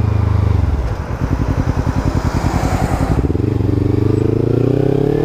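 Kawasaki Ninja 300's parallel-twin engine running through an Akrapovic exhaust with the noise killer (dB killer) removed. It chugs at low revs, then from about three seconds in the engine note rises steadily as it revs up.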